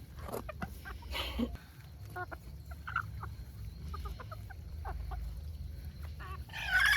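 Chickens clucking, with short scattered calls throughout. Near the end, a louder call begins.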